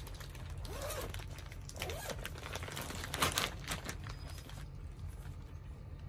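Clear plastic saree catalog bags crinkling and rustling as they are handled and opened, with a few louder crackles about two seconds in and again about three and a half seconds in.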